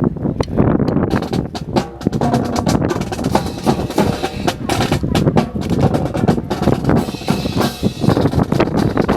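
Drill rifles being slapped, spun and struck in a fancy rifle drill: a dense, irregular run of sharp wooden clacks and knocks.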